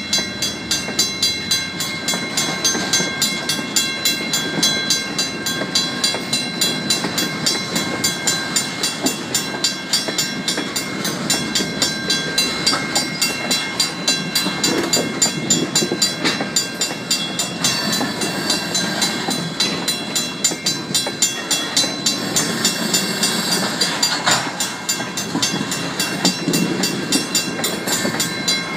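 A WCH mechanical crossing bell ringing in an even rhythm, about two and a half strikes a second, over freight cars rolling slowly through the grade crossing with a rumble and clank of wheels on the rails.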